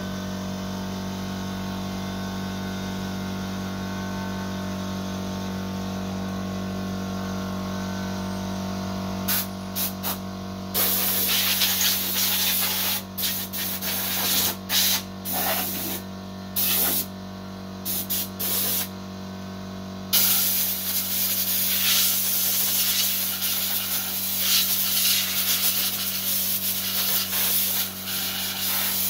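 Electric air compressor running with a steady hum. From about nine seconds in, bursts of compressed air hiss on and off from an air line, running almost continuously in the second half.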